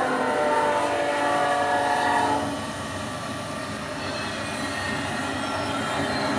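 N scale model train of CP Rail diesel locomotives hauling coal hoppers passing close by. A multi-tone horn sounds for about two and a half seconds, then gives way to the steady rolling clatter of the hopper cars' wheels on the track.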